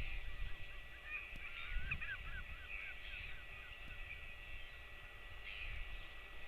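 A bird calling a quick run of about a dozen short chirping notes a little over a second in, over wind rumbling on the microphone.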